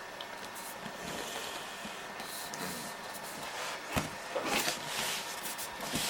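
Handling noise from the product box being set down and handled on a table: a sharp knock about four seconds in, then rustling and scraping, over a steady room hiss.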